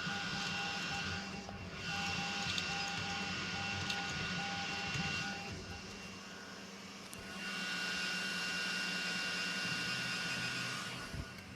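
3D printers running: a steady whine from their stepper motors and fans, under a hissing rush that swells and drops away in spells of a few seconds. A faint pulsing tone repeats through the first half.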